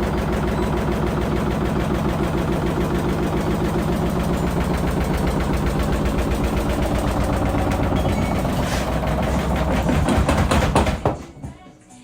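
LG washing machine running its test-mode spin with an unbalanced load: a loud machine hum with fast, even knocking and rattling as the cabinet shakes. It cuts off sharply about eleven seconds in.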